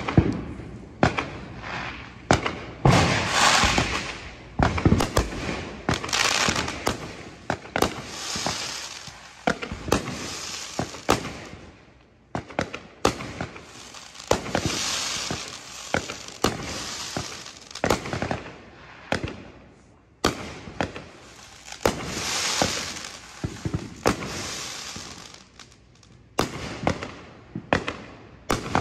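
Consumer aerial fireworks going off in quick succession: many sharp bangs and pops, with several longer stretches of dense crackling.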